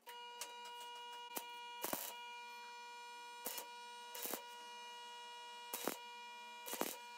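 Stick arc welder humming steadily, with a series of sharp crackles as the electrode arc is struck to tack a small steel part onto a bar in a vise.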